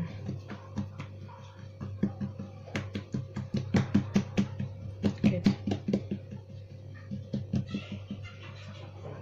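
Fingertips patting and pressing a ball of bread dough flat on a floured marble countertop: quick rhythmic pats, about four or five a second, loudest in the middle, over a steady low hum.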